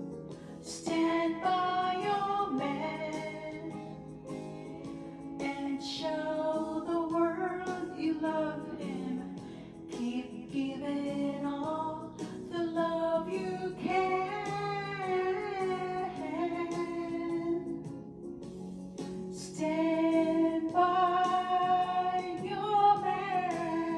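A woman singing a slow ballad into a handheld karaoke microphone over a backing track, in phrases with short breaths between them.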